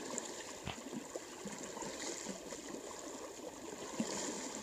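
Water sloshing and splashing around legs as people wade through a knee-deep river, over the steady sound of the river's flow, with many small splashes scattered throughout.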